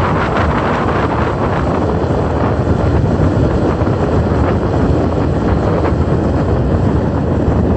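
Electric skateboard coasting downhill at speed: a steady rush of wheels rolling on asphalt and wind buffeting the microphone.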